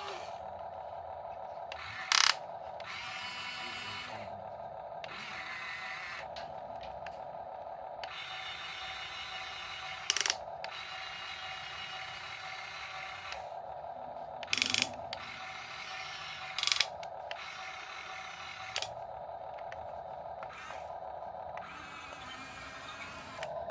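Electric gear motors of a Huina 1:14 scale RC excavator whirring in repeated stops and starts as it is worked, with several short, loud clatters.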